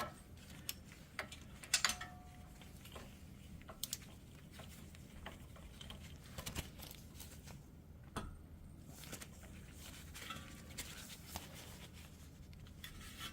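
Sparse light metallic clicks and taps of a hand ratchet wrench working the hub bearing bolts on a Jeep Wrangler front axle, over a low steady hum.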